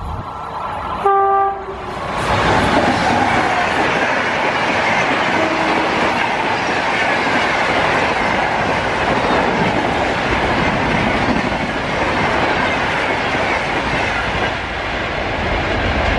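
An Indian Railways electric locomotive's horn gives one short blast about a second in. Then a train of LHB passenger coaches runs past at high speed, with a loud, steady rush of wheels on rail.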